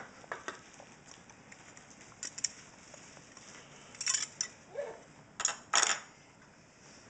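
Cardboard power-supply box being handled and opened: light clicks and taps, then a few sharp scraping, rustling strokes about four seconds in and again near six seconds.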